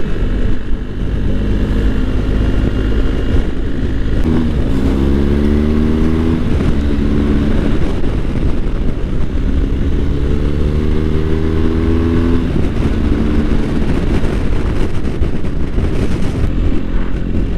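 BMW R1250 GS boxer-twin engine pulling under a rider, under steady wind and road rush. The engine note climbs twice, about five and ten seconds in, and drops back at the end of each climb.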